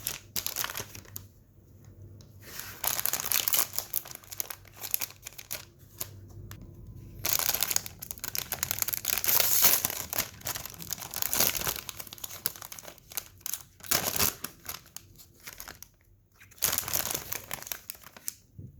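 Cardboard-and-plastic packaging of a Pokémon TCG First Partner Pack being opened by hand, in several bursts of rustling with short pauses between.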